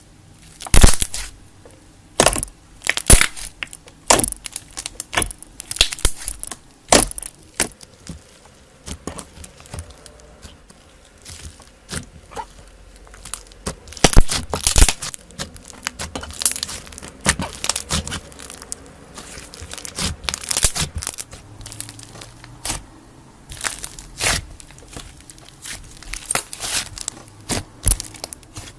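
Slime being squeezed and pressed by hand, giving off irregular sharp crackles and pops, some in quick clusters and others a second or more apart.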